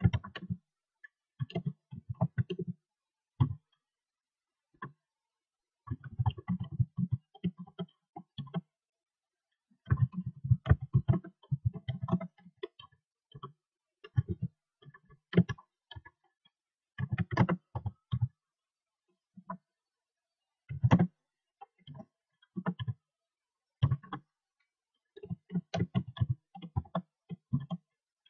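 Typing on a computer keyboard: bursts of rapid keystroke clicks with short pauses between them.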